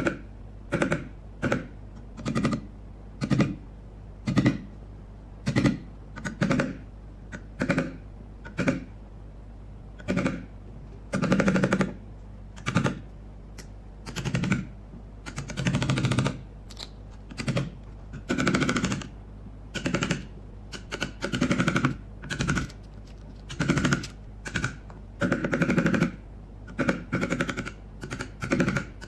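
Steel wood chisel cutting into a softwood board, chopping and paring out a shallow recess: short cuts about one a second, with a few longer paring strokes in the middle and near the end.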